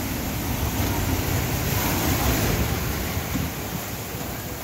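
Large storm waves breaking against a beach-house sea wall and surging over it onto the patio: a continuous rushing wash of surf that swells loudest about two seconds in, then eases.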